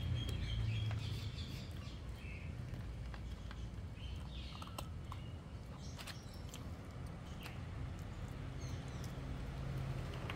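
A puppy eating duck bones from a bowl, with scattered clicks and crunches of chewing. Birds chirp faintly over a steady low hum.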